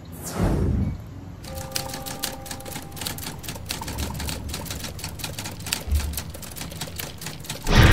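Trailer-style sound effects: a falling whoosh, then rapid typewriter-key clicking with faint held tones behind it, and a loud low impact hit near the end, which is the loudest sound.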